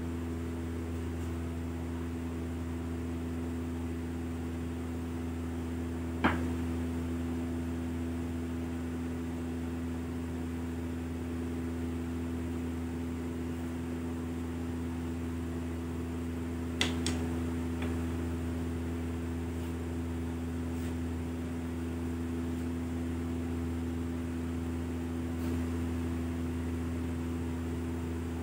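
Steady low machine hum that holds unchanged, with a light click about a third of the way in and a pair of clicks just past halfway.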